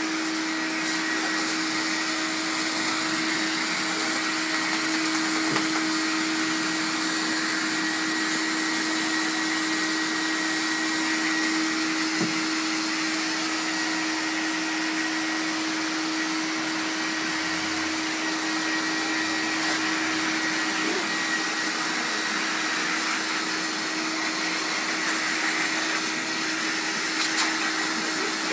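High-velocity pet dryer running steadily, blowing air through its hose onto a wet dog's coat: an even rush of air with a steady motor whine at one pitch.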